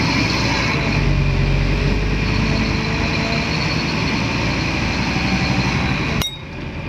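Scania N230UD Omnidekka double-decker bus under way, heard from inside the passenger saloon: steady diesel engine and road noise with a faint whine that slowly falls in pitch. About six seconds in, the sound suddenly drops quieter and duller.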